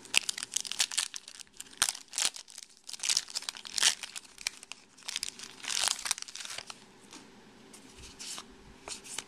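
Foil wrapper of a 2010 Topps Chrome baseball card pack being torn open and crumpled in the hands. A dense run of sharp crackles thins out after about seven seconds.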